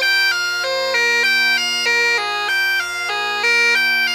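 Bagpipes playing a tune: steady drones hold under a chanter melody that changes note several times a second.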